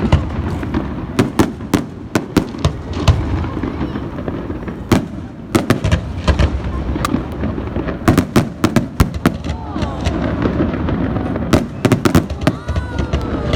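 Fireworks going off: a rapid, irregular string of sharp bangs and cracks, often several in quick succession, over a steady low rumble of further bursts.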